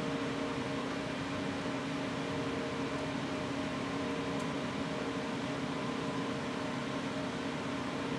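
Electric box fan running, a steady hum and hiss with a few faint steady tones.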